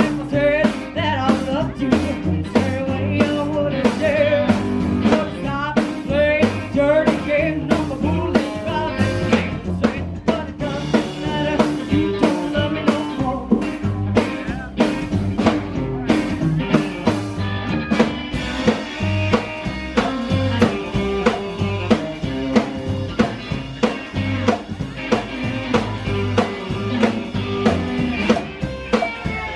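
Live rockabilly band playing: a woman singing over upright bass, drum kit and hollow-body electric guitar, with a steady beat. In the second half the singing gives way to an instrumental stretch carried by the band.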